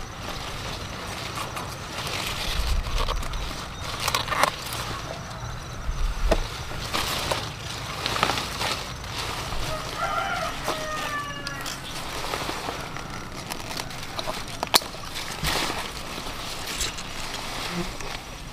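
Pruning shears snipping through pepper stems, with leaves rustling as the large green bell peppers are pulled from the plants; the sharpest snip comes about fifteen seconds in. A bird calls briefly about ten seconds in.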